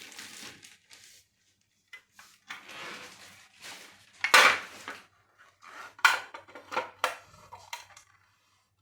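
Hard objects clattering and clanking: a loud sharp clank about four seconds in, then several smaller knocks.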